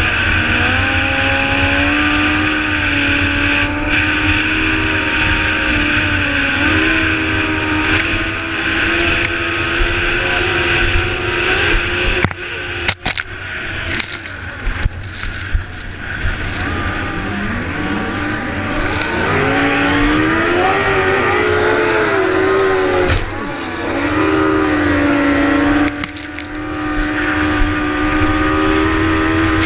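Racing tri-hull boat's engine running hard at speed, heard from on board, with the rush of wind and spray on the microphone. The engine note dips and breaks about 13 seconds in, and wavers up and down around 20 seconds in, with a few sharp knocks from the hull striking the chop.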